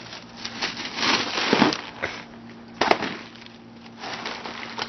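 A balloon handled close to the microphone, crinkling and rustling, with a rush of air about a second and a half in and a single sharp crack near three seconds.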